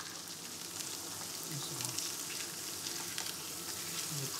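Trout fillets sizzling steadily as they fry in butter in a stainless steel frying pan.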